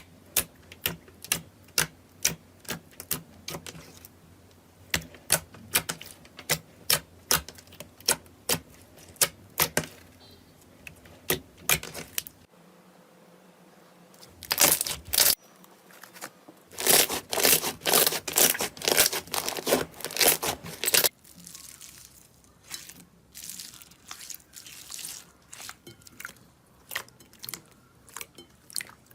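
Slime being pressed and worked by hand, making sharp wet clicks and pops as air pockets burst, at first about two or three a second. About halfway through comes a denser run of louder crackling pops, and near the end the clicks are softer and sparser.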